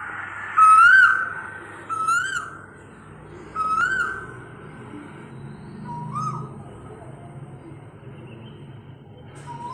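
A bird calling repeatedly: short whistled notes, each rising then dropping, about one every second and a half. The notes are loud at first and fainter after a few seconds.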